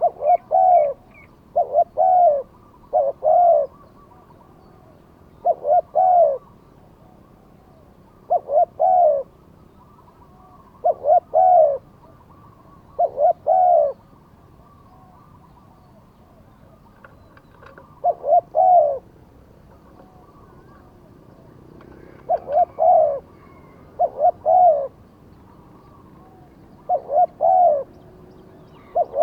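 Spotted dove cooing: short phrases of two or three low coos, repeated every one to three seconds, with a pause of a few seconds midway.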